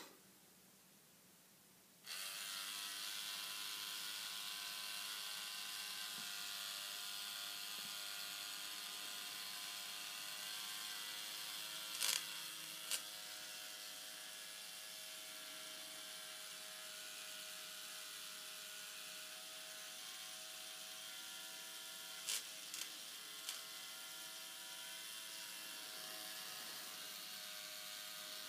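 Small K'Nex motor switching on about two seconds in, then whirring steadily as it drives the plastic gears of a ball-machine arm lift. Two sharp clacks come about halfway through and three more a little later.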